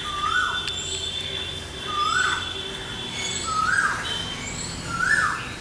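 A bird calling four times, about every second and a half, each call a short note that rises, holds and drops, pitched a little higher each time.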